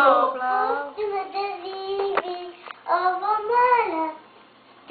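A young girl singing a few drawn-out notes, breaking off about four seconds in.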